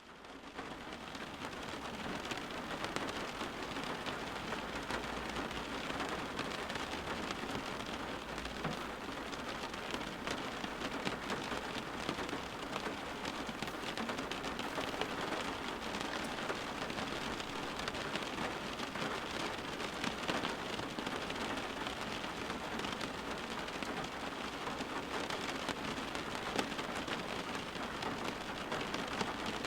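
Steady rain falling, with many individual drops ticking on a surface.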